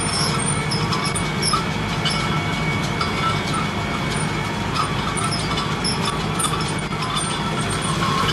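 Tractor engine running steadily under load while a Deutz-Fahr MP 119 round baler picks up and rolls hay, with scattered brief squeaks and clinks from the baler's moving parts.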